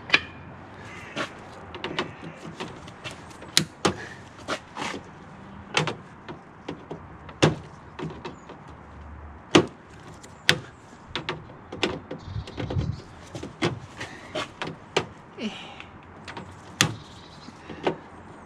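Irregular metallic clicks, taps and knocks of a hand tool working at the bonnet catch's drilled rivets on the car's front slam panel. The rivets are spinning in their holes instead of drilling out, and no drill is running.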